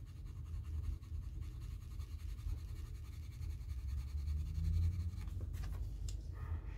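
A soft-core colored pencil scratches on paper with rapid, even strokes as a swatch box is shaded in, stopping about five and a half seconds in. A steady low hum runs underneath.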